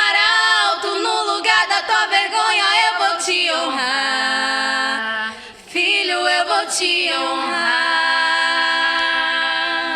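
A vocal group singing a Portuguese gospel song without instruments, in harmony on long held notes. It breaks off briefly about five and a half seconds in, then comes back and holds a sustained final chord.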